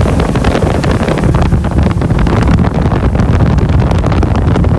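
Motorboat under way, its engine running beneath loud wind buffeting on the microphone.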